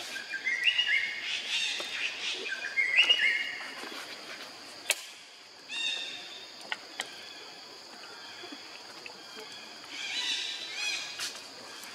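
Baby macaque giving a run of short, high-pitched squeaking calls in the first few seconds and again about ten seconds in. A single sharp click comes about halfway through.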